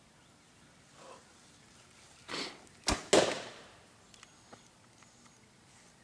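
Bow being shot: a sharp snap of the string about three seconds in, followed at once by a louder whooshing burst that fades over about half a second. A shorter rushing noise comes just before it.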